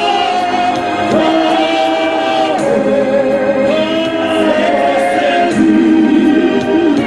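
Choir singing a gospel song, several voices holding and moving between sustained notes.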